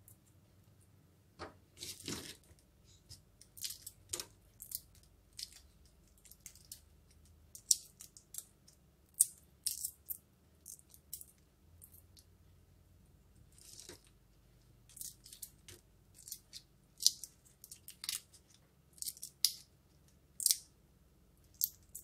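Shells of boiled shrimp crackling and snapping as they are peeled off by hand: irregular short, crisp crackles in quick spells, with a longer rustle about two seconds in.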